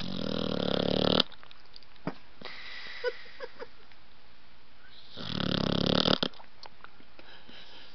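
Blue-nose pit bull puppy snoring in its sleep: two long snores about five seconds apart, each about a second long, building louder and then cutting off abruptly.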